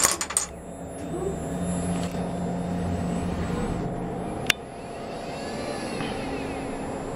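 Dominoes clattering as they topple, then the servo motors of a FANUC LR Mate 200iC robot arm humming steadily as the arm moves. A single sharp click comes about four and a half seconds in, as the gripper takes hold of a wooden block.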